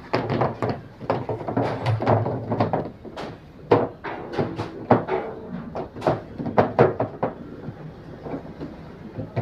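Irregular knocks, clicks and clattering of plastic and metal parts being handled on an automatic washing machine, with loud sharp knocks about four and six seconds in.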